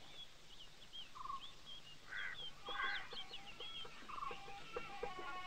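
Faint outdoor birdsong: many short, high chirps with a few brief rasping calls. Plucked-string music fades in over the last second or two.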